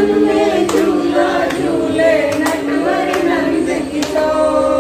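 A group of voices singing a devotional song together, with a sharp beat a little under once a second.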